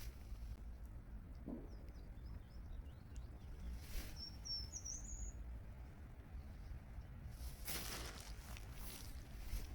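A feeding duck's bill splashing in the water in a few short bursts, a couple of them near the end, over a steady low rumble. A small bird chirps briefly in the middle.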